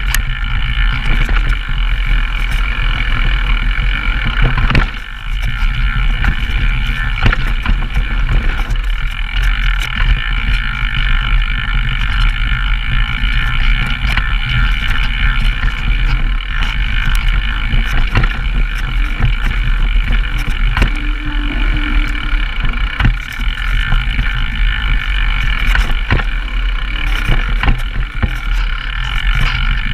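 Downhill mountain bike running fast down a rough dirt trail: a steady loud rush of tyres and air with frequent sharp clacks and rattles from the bike over the bumps, briefly easing about five seconds in.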